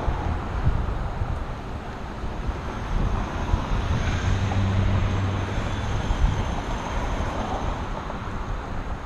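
Wind rushing over a bicycle-mounted camera's microphone while riding, mixed with road and passing car traffic. A low engine hum swells from about four to six seconds in, and a few sharp knocks come through.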